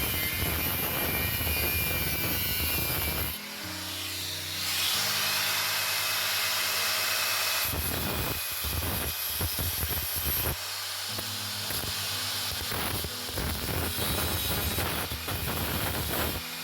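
Power tool grinding and cutting steel while a replacement fridge door hinge clamp is shaped, running steadily at first and then in short uneven passes.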